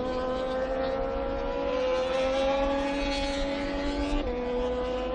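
Moto2 racing motorcycle engine (Triumph 765 cc triple) held at high revs, its pitch creeping slowly upward, with a short drop in pitch about four seconds in.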